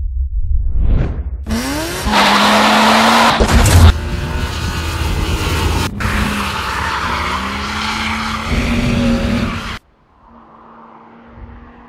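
Car engine revving hard while the tyres squeal and skid in a drift, the engine pitch rising and falling. About ten seconds in the sound cuts off suddenly to a quieter, steady engine tone.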